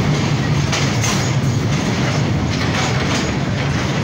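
Train carriage running across a steel truss bridge: a steady rumbling with a string of quick clacks from the wheels.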